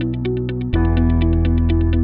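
Background music: a fast, even ticking beat over held bass notes and a stepping melody. The bass moves to a new, louder chord just under a second in.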